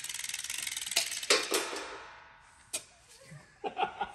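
Ratcheting lever chain hoist clicking rapidly as its chain and pawl are worked, then two sharp metallic clacks followed by a short fading ring, and one more click later.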